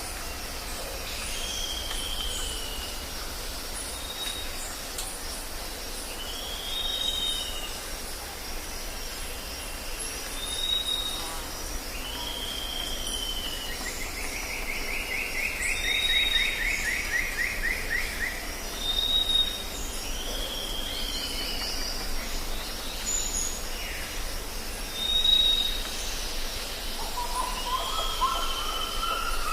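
Jungle ambience: several birds call over a steady high drone of insects, with short arched calls and whistles repeating every couple of seconds. A longer buzzy, rattling call comes about halfway through, and a lower rising call near the end.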